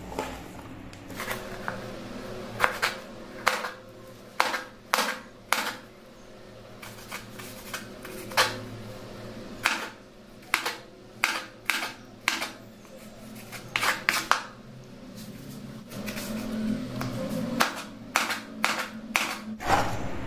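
Kitchen knife chopping tomatoes on a wooden cutting board: irregular sharp knocks of the blade striking the board, some in quick runs of two or three. Near the end, cut pieces are scraped off the board onto a plate.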